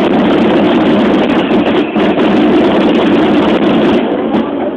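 Fireworks going off in a dense barrage: a continuous loud rumble of overlapping bursts, peppered with sharp crackles.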